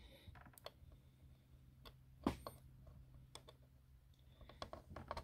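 Faint, scattered clicks and small plastic knocks of a wire connector plug being worked onto a pin header on a robotic mower's circuit board, the loudest about two seconds in and a few more near the end.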